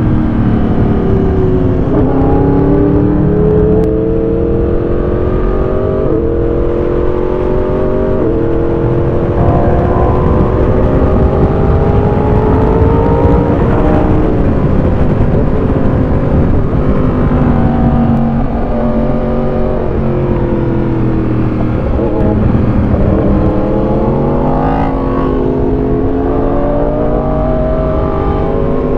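Motorcycle engine under way on a winding road, its pitch climbing with quick gear changes, easing off and falling for several seconds around the middle, then climbing again near the end. A steady rush of noise runs underneath.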